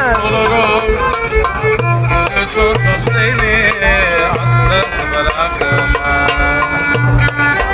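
Live violin playing a melody with heavy vibrato, accompanied by a hand-held frame drum.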